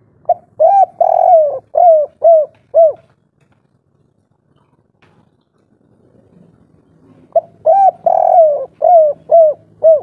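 Spotted dove (tekukur) cooing two song phrases about five seconds apart. Each phrase is a short lead-in note, a longer drawn-out coo and then three short arching end notes: the 'kuk 3' song type that keepers prize.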